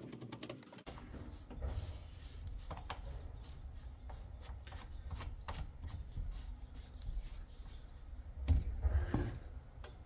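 Handling noises from a flush hose's threaded fitting being unscrewed and pulled off a tankless water heater's service port valve: scattered small clicks and rubbing of metal parts. There is a louder knock about eight and a half seconds in.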